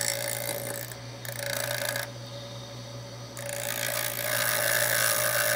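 Hand file rasping against a ring blank as it spins on a bench-grinder mandrel, over the steady hum of the grinder motor. The filing thins out in the middle and is louder in the last two seconds.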